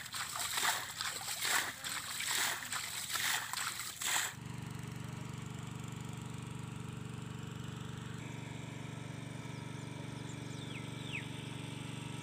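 Hands splashing and squelching in shallow muddy water for about four seconds, then a cut to a small engine-driven water pump running with a steady low hum. A couple of short falling bird chirps come in near the end.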